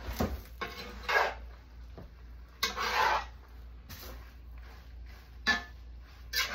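Metal spatula scraping and stirring ground meat in a cast iron skillet, in about six separate scrapes.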